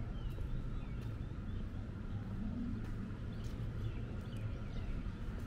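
Small birds chirping faintly in short scattered calls over a steady low outdoor rumble, with a few soft footsteps on the brick path.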